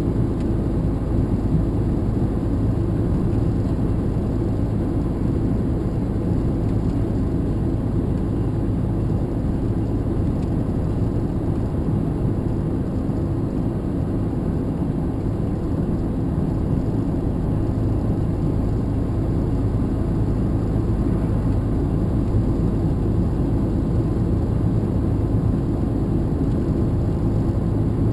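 Steady engine and road noise inside a moving vehicle's cab, a low even rumble with a faint engine hum and no changes.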